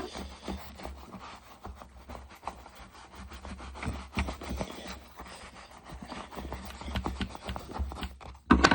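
Brush scrubbing conditioning wax into a leather baseball glove: irregular, scratchy rubbing strokes, with a sharp knock near the end.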